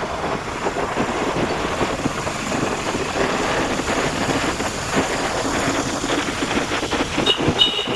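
Rumbling travel noise of a moving vehicle, with wind buffeting the microphone. A high, steady metallic squeal joins in near the end.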